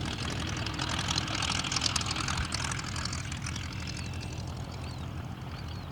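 Boeing Stearman PT-27 Kaydet biplane's seven-cylinder radial engine and propeller running with a steady low drone; the propeller noise swells about a second in, then fades.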